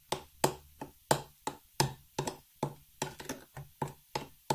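Metal spoon stirring blueberry cake batter in a glass bowl, tapping against the bowl about three times a second.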